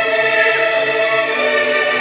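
Slow classical music: a choir with orchestra holding long chords that change every second or so, with no beat.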